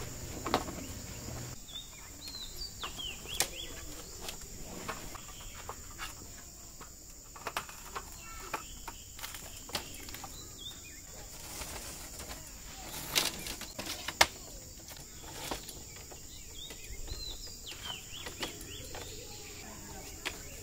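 Scattered clicks and knocks of a folding aluminium camp table being collapsed, with two louder knocks a little past the middle. Birds chirp in short bursts in the background over a steady high hiss.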